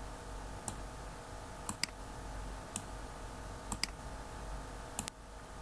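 Computer mouse button clicking roughly once a second, some clicks coming in quick pairs, as files are picked up and dropped by dragging. Faint steady hum underneath.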